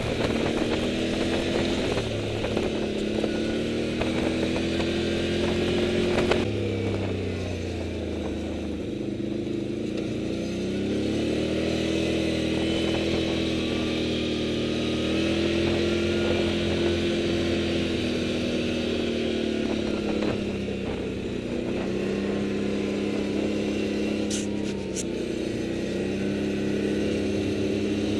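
Touring motorcycle's engine running as the bike rides along, heard from on the bike, its pitch rising and falling with the throttle and gear changes. It drops about six seconds in, climbs again a few seconds later, and dips briefly near the three-quarter mark.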